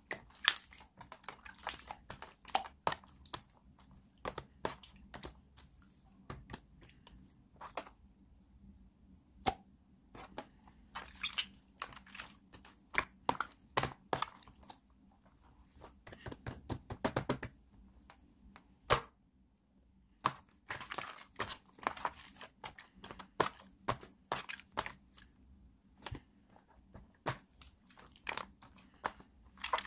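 Slime being pressed, squished and stretched by hand, giving irregular sticky clicks, crackles and small air-bubble pops in clusters, with a dense run of rapid pops about two-thirds of the way through.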